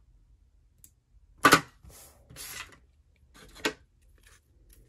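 Washi tape being handled on a tabletop: a sharp snap about one and a half seconds in, a short papery rustle after it, and a quieter click near the end.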